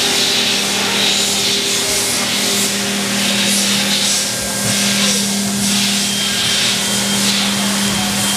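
Haas EC-400PP horizontal machining center running with coolant spraying inside its enclosure: a steady machine hum under a hiss that rises and falls irregularly.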